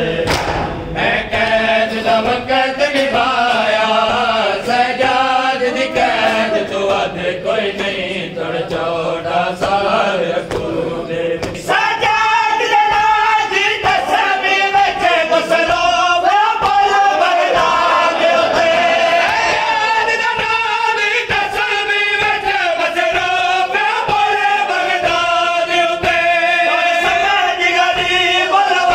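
A noha, a Shia lament, sung by a male reciter with a crowd of mourners chanting along. In the first part it is marked by the hand strikes of matam. About twelve seconds in, the lead voice comes through strongly, singing a long, wavering melodic line.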